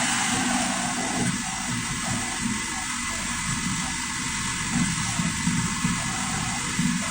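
Freshly rebuilt 2.0T EA888 four-cylinder turbo petrol engine of an Audi Q5 running at a steady idle just after being started.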